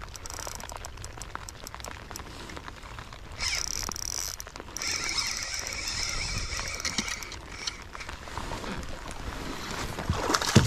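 Spinning reel being cranked in two spells of whirring retrieve, over a steady patter of rain on the water and wind noise. Near the end a hooked bass splashes at the surface beside the kayak.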